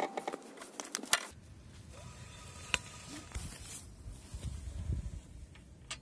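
Scissor jack being cranked up by its handle rod: a fast run of small metallic clicks and knocks for about the first second, ending in one louder click. After that, a low rumble with a few isolated clicks.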